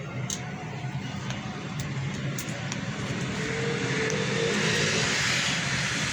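A vehicle passing, its noise swelling over the second half and loudest about five seconds in, over a steady low hum.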